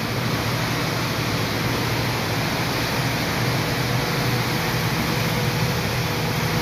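Steady rushing machinery and ventilation noise with a low hum underneath, the constant background of a ship's galley.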